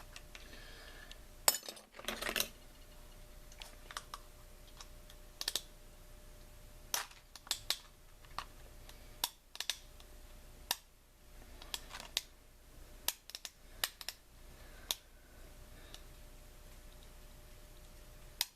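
Scattered, irregular sharp clicks and taps of small hard parts and tools being handled during work on a chainsaw's recoil starter, with a short scrape about two seconds in.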